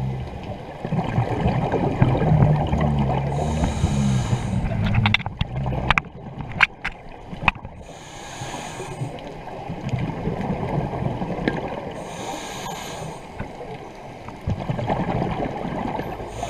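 Underwater sound of a scuba dive in a strong current: a steady rushing, rumbling water noise, with hissing bursts from the diver's regulator breathing about every four seconds. A few sharp clicks or knocks come between about five and seven and a half seconds in.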